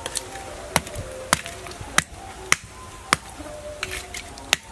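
Lumps of wood charcoal being struck and broken apart, giving about six sharp, dry knocks roughly half a second apart, with a pause before the last one.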